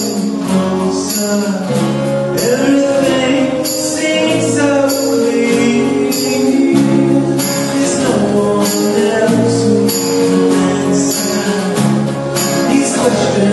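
A live folk-rock band plays: a male lead vocal over strummed acoustic guitar, mandolin and keyboard, with jingling percussion repeating on the beat.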